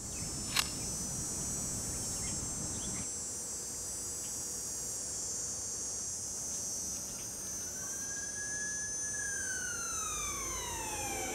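Night ambience dominated by a steady, high-pitched chorus of crickets and other insects, with a sharp click about half a second in. Over the last few seconds a siren-like tone rises slightly and then slides steadily downward.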